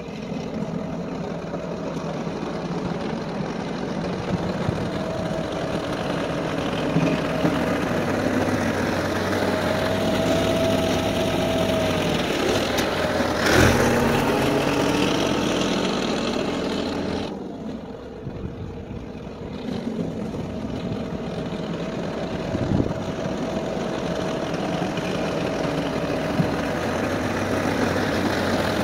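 Ford 5610S tractor's four-cylinder diesel engine running under load as it drags a box blade through gravel, with the scrape of the gravel under it. It grows louder as the tractor approaches, with a sharp knock about halfway through and a short drop in level a few seconds later.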